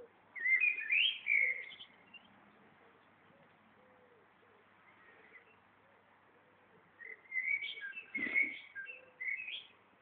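Songbird singing two phrases of quick, varied notes, one about half a second in and a longer one about seven seconds in. A pigeon coos faintly in between, and there is a brief low thump about eight seconds in.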